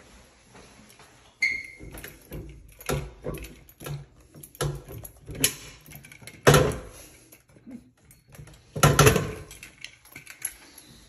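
Metal clicks and clunks of a hinged chrome door on a small recessed wall compartment being pulled open and handled. A sharp, briefly ringing click comes about a second and a half in, and the loudest clunks come about six and a half and nine seconds in.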